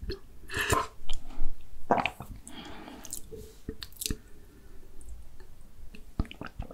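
Close-miked gulping and swallowing as a drink is taken from a glass mug, wet mouth sounds in several clusters with a few sharp clicks near the end.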